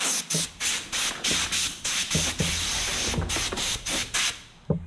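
Compressed-air blow gun hissing in short blasts, about three a second, that run together into a longer steady blast, blowing dirt out of chainsaw parts. A few light knocks are heard under it.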